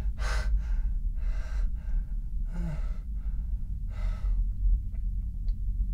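A man breathing audibly, with four separate breaths in and out and a brief low vocal sound about two and a half seconds in. A steady low hum runs underneath.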